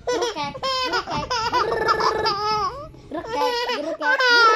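A baby laughing in high-pitched runs, broken by short pauses.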